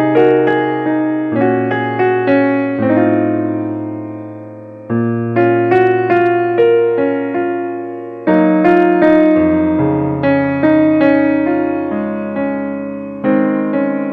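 Background piano music: single notes and chords struck and left to fade, a new chord every second or so.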